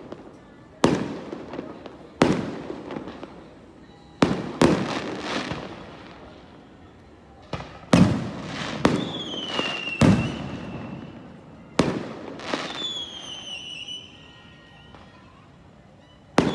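Aerial fireworks bursting: about nine sharp bangs at irregular intervals, each fading off over a second or so. Two whistling fireworks give high whistles that drop slightly in pitch, about nine and twelve and a half seconds in.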